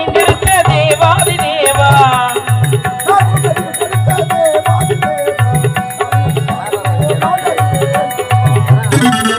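Stage-drama accompaniment music: a harmonium holds steady notes under a wavering melody line, a drum keeps a regular beat about every half second, and small cymbals tick high above.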